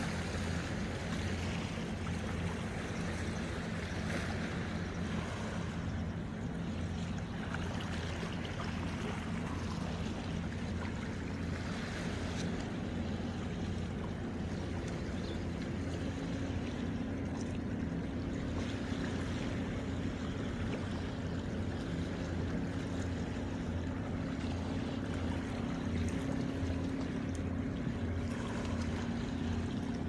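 Calm sea washing against shoreline rocks, with a small boat's engine droning steadily offshore; the engine's hum grows a little stronger about halfway through.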